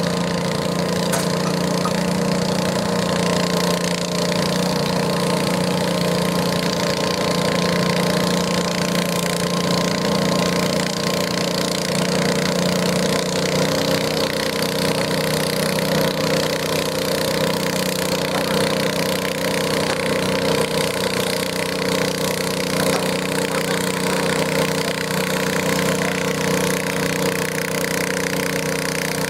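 Wheel Horse garden tractor engine running steadily under load as it pulls a weight-transfer sled at a crawl, a constant drone whose pitch shifts slightly about halfway through.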